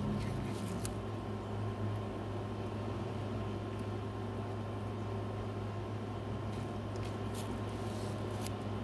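Steady low hum of a small motor or fan, with a few faint, short scratchy pencil strokes on paper about three-quarters of the way in and near the end.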